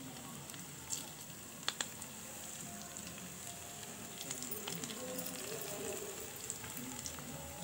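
Oil in a pan of fried small fish still sizzling faintly and steadily from the pan's leftover heat with the gas turned off, as fresh coriander is mixed in by hand. There are two light clicks about one and almost two seconds in.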